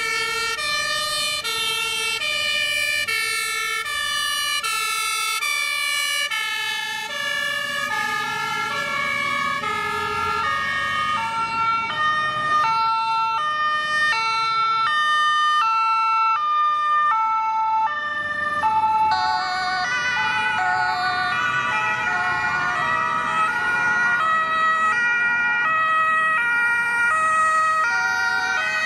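A convoy of emergency vehicles passing, several German two-tone sirens (Martinshorn) sounding at once at different pitches and out of step with one another, over the engines of the vehicles. About two-thirds of the way in, a quicker wavering siren tone joins the mix.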